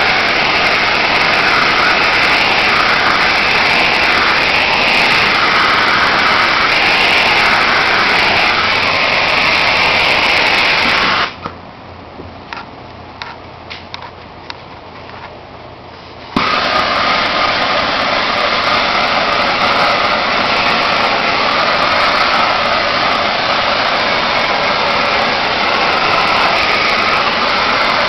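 Handheld gas torch burning with a steady hiss as its open flame heat-shrinks window tint film on a car's back window. About eleven seconds in the flame goes off, leaving a much quieter gap with a few faint clicks, and about five seconds later it comes back on suddenly and burns steadily again.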